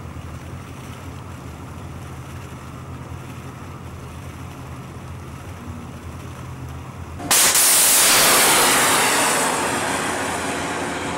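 A vessel's engines hum steadily. About seven seconds in, a sudden loud rushing hiss sets in and slowly fades.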